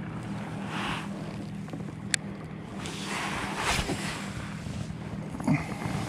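A baitcasting rod and reel being cast: a rushing whirr of the spool paying out line around the middle, then a short click of the reel near the end. A steady low hum runs underneath.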